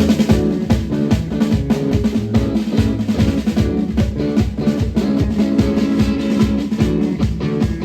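A rock band playing loud: a drum kit hitting a fast, dense beat of kick and snare over sustained bass and guitar notes.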